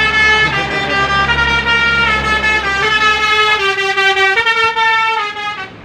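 A bus's telolet basuri musical air horn plays a tune in held notes that step from one pitch to the next, over a low engine rumble, and cuts off sharply near the end.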